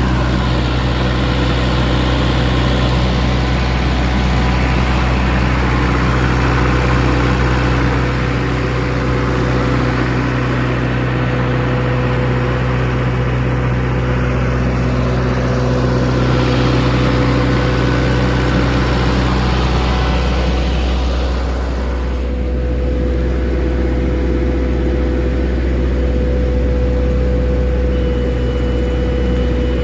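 Simpson S433 diesel engine running steadily on a load test with an arc welding machine. The tone shifts briefly about three-quarters of the way through.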